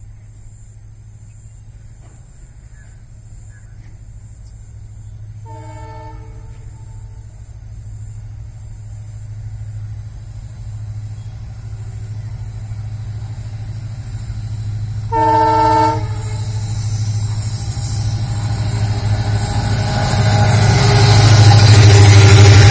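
A WDG-4 diesel-electric locomotive, with its EMD 16-cylinder two-stroke engine, approaches and passes close, its engine drone growing steadily louder. It sounds two short horn blasts, a fainter one about five and a half seconds in and a louder one about fifteen seconds in. Near the end the engine and a rising rush of train noise are at their loudest as the locomotive goes by.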